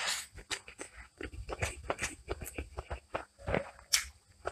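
Close-up eating sounds of fingers mixing and squeezing rice with chicken qorma masala gravy on a plate: many short, irregular wet clicks and squelches.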